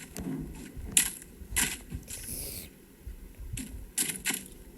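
Coins being dropped into a toy vending machine's coin slot: about five sharp metallic clinks, spread out, with a short rattle of coins sliding down inside about two seconds in.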